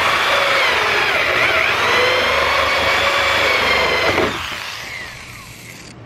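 Corded electric drill running a hole saw through the top layer of a fiberglass hood. The motor's whine dips in pitch as the saw bites. About four seconds in the trigger is released, and the motor winds down with a falling whine.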